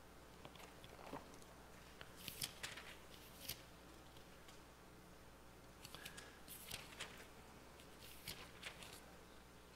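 Thin Bible pages being leafed through at a lectern: faint crinkling rustles in three short clusters over a quiet room.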